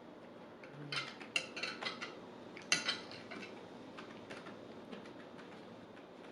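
A utensil clinking and scraping against a plate during eating, a quick run of clicks over about two seconds, loudest about three seconds in.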